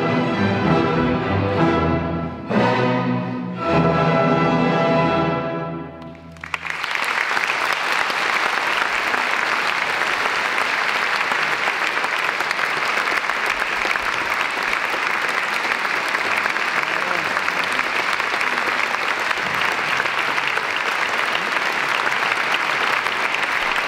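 Symphony orchestra playing its closing chords, strings and brass together, the last chord held and dying away about six seconds in. A full concert-hall audience then breaks into steady, sustained applause.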